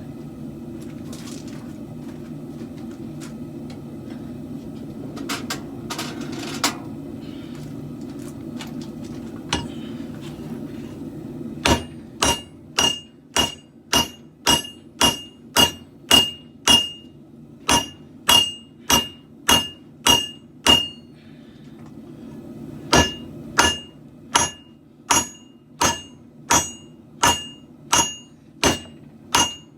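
Hand hammer blows on hot katana steel over an anvil, about two a second, each with a bright ring, as the blade is drawn out and thinned. The blows start about twelve seconds in and pause for about two seconds in the middle. Before they start there is only a steady background running noise, likely the forge, with a few light clinks.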